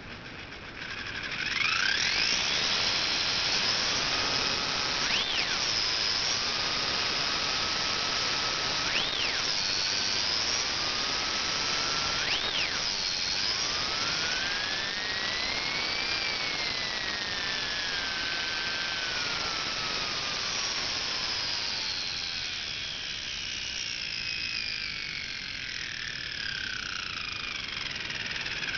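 Mura slot car motor with an M-20+ armature in a 1/24 scale drag chassis, running with a high-pitched whine through its gears. It spins up about a second in, is blipped three times to a much higher pitch, then climbs slowly and falls away again.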